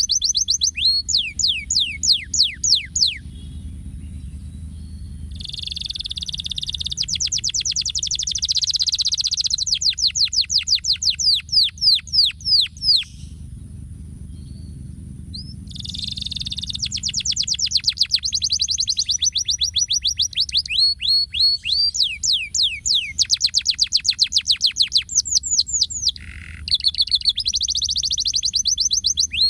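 Yellow domestic canary singing: long phrases of rapid trills, each a run of quick falling whistled notes, broken by short pauses about four and fourteen seconds in.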